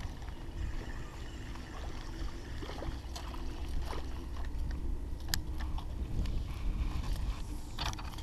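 Water lapping against a canoe hull, with wind rumbling on the microphone and scattered light clicks and knocks.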